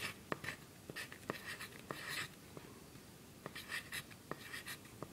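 Pencil writing numbers on graph paper: short scratching strokes and light taps of the tip, with a brief pause about halfway.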